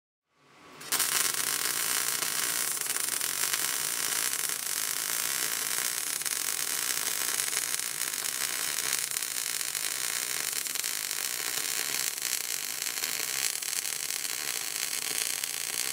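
MIG welding arc crackling and hissing steadily as a bead is laid along a metal joint. It starts just under a second in and runs on without a break.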